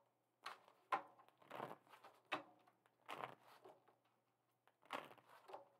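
Tarot cards being shuffled and drawn by hand: a handful of faint, brief card flicks and rustles at irregular moments.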